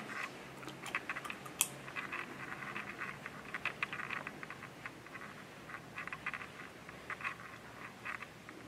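Footsteps: irregular light taps and clicks, with one sharper click about a second and a half in.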